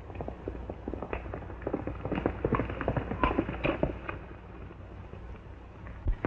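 Hoofbeats of a galloping horse: a fast, uneven clatter that thins out after about four seconds, with one sharp knock near the end.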